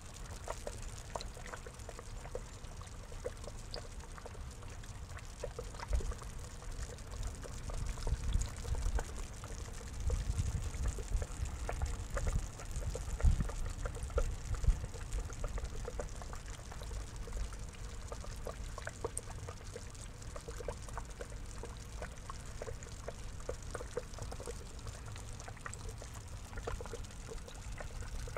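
Water trickling and splashing steadily into a small pond, with many little drips. Low rumbling on the microphone comes and goes, strongest midway through.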